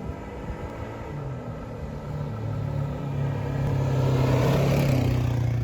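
A vehicle engine running steadily, growing louder over several seconds to a peak near the end.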